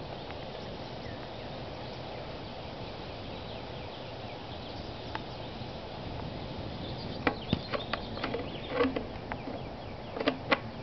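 Aerosol hairspray hissing steadily into the PVC combustion chamber of a potato cannon, charging it with fuel. About seven seconds in, the spraying gives way to a scatter of short clicks and knocks as the can is set down and the chamber is handled.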